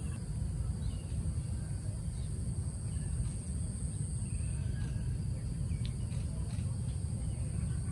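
Outdoor ambience: a steady low rumble with faint, scattered bird chirps and a thin, steady high-pitched insect drone that fades about halfway through.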